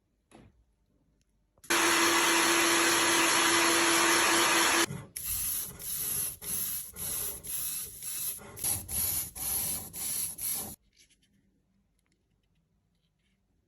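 A steady spray hiss for about three seconds, then rhythmic abrasive rubbing at about two strokes a second for some six seconds: sanding a 3D-printed plastic model part, which stops abruptly.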